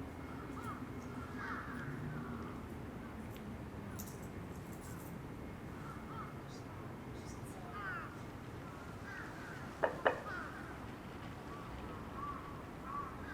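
Birds calling intermittently, including crows cawing, over a steady low background hum. Two sharp clicks sound close together about ten seconds in.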